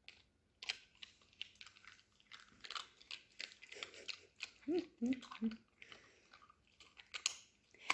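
Small dog gnawing and crunching a dried natural chew treat, with irregular crunches and clicks. A few short squeaky sounds come about five seconds in.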